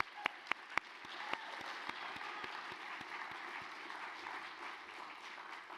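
Audience applauding: a few separate loud claps at first, building quickly into steady applause that begins to fade near the end.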